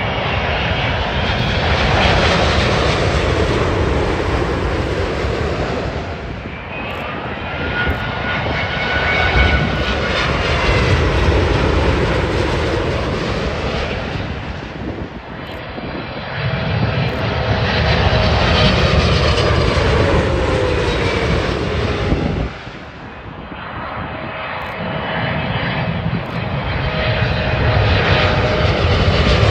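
Jet airliners on final approach passing low overhead one after another: a steady jet engine rumble with whines that slide down in pitch as each aircraft goes by. The sound changes abruptly several times as one recording gives way to the next.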